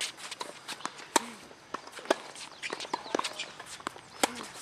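Tennis ball struck by rackets and bouncing on an outdoor hard court during a baseline rally: a series of sharp pops, the loudest about a second in, about two seconds in and near the end, with the scuff of tennis shoes between.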